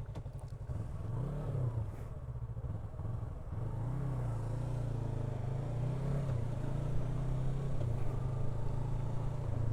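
Yamaha R3 parallel-twin engine running while the bike is ridden, its pitch wavering up and down with the throttle.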